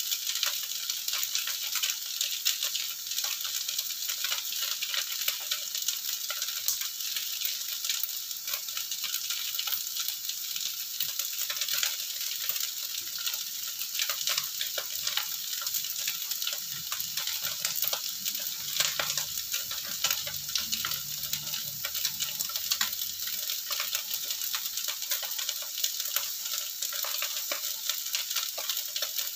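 Rice vermicelli with winged beans frying in a hot wok: a steady sizzle with frequent small clicks and scrapes from the metal spatula. The noodles are left on the heat to scorch slightly and form a crust.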